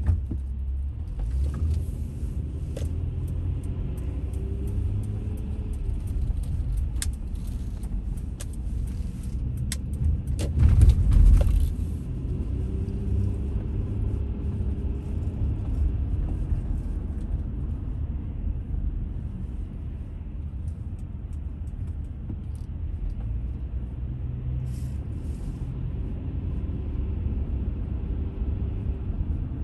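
Car driving through city traffic, heard from inside the cabin: a steady low rumble of road and engine noise. A louder rush of noise comes about eleven seconds in.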